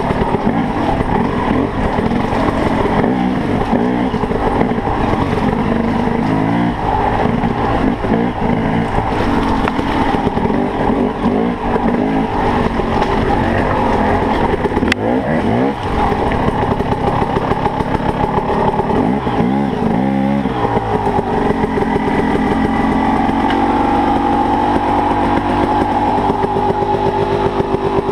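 KTM dirt bike engine ridden off-road, revving up and down continuously as the throttle is opened and shut over rough trail. There are sharper rev swells about fifteen and twenty seconds in, and the engine runs steadier near the end.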